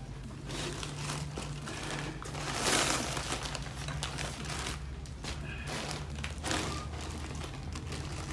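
Plastic packaging bags crinkling and rustling as they are handled and opened, in irregular bursts with the loudest about three seconds in.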